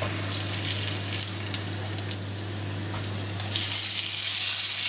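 Oil sizzling in a frying pan under a placinda, a flat cheese-filled pie, with a few light clicks. The sizzle grows clearly louder about three and a half seconds in, as the pie is turned over onto its unfried side in the hot oil.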